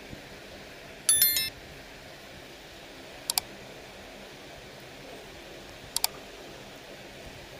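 Subscribe-button animation sound effects: a short bright chime about a second in, then two quick double mouse clicks, one near the middle and one near the end, over a steady low hiss.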